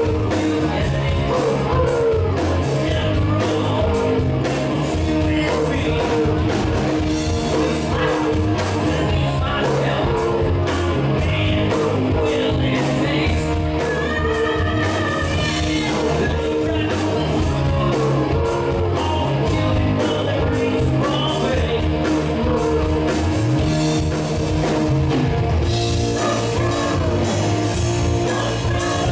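A live rock band playing loud, with drum kit, bass and electric guitar under a male lead singer.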